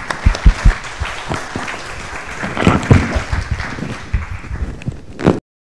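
Audience applauding, a dense patter of many hands with a few loud claps close to the microphone about half a second in; it cuts off suddenly near the end.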